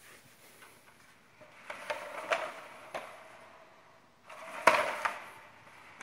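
Handling noise: two bursts of light clicking and rattling, with a louder cluster of knocks about four and a half seconds in.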